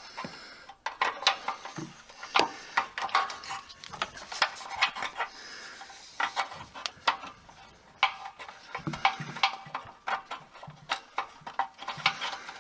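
Irregular metallic clinking, clicking and rattling of breakaway cable hardware being handled as the breakaway switch is worked back into place, with a few soft knocks about two-thirds of the way in.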